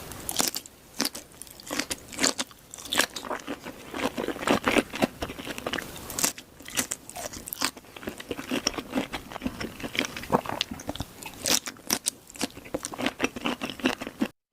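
Close-miked eating: crisp bites and crunching with chewing, a dense, irregular run of sharp crackles that stops abruptly at the end.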